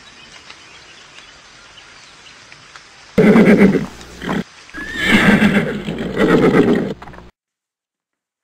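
A horse neighing and whinnying loudly in two long bursts, starting about three seconds in after a faint hiss, then cutting off abruptly.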